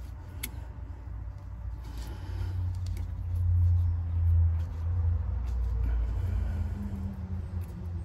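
A deep low rumble that builds over a couple of seconds, peaks near the middle and eases off, with a few faint clicks of hand and tool work on a small bolt under the car.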